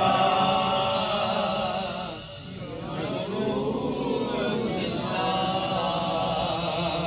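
Men's voices chanting a devotional refrain through a microphone and loudspeakers, with a brief drop in loudness about two seconds in.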